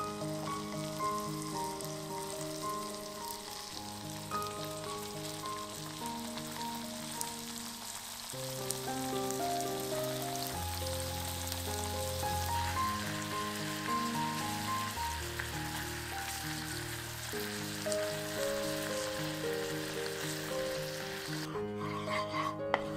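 Scallops sizzling as they sear in foaming butter in a nonstick frying pan, a steady crackling hiss under gentle background music. The sizzle drops away near the end.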